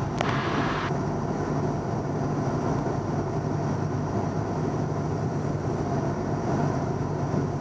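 Cabin drone of a 1977 Cessna 172N's four-cylinder Lycoming engine and propeller, running steadily at reduced power in a descent. A short hiss at the start cuts off sharply about a second in.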